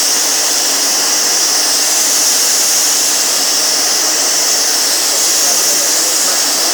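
Sagola compressed-air paint spray gun spraying, its air blast a loud, steady, high hiss with the trigger held throughout.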